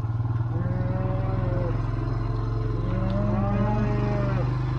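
Cattle mooing: two long moos, the second longer, over the steady hum of a running engine.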